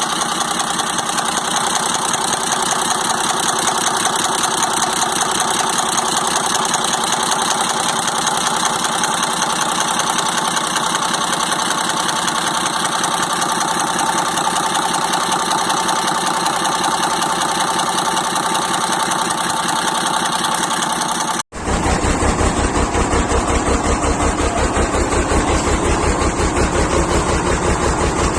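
FNM 180 truck's diesel engine idling steadily. About three-quarters of the way through, the sound breaks off for an instant and comes back with a heavier, evenly pulsing low rumble.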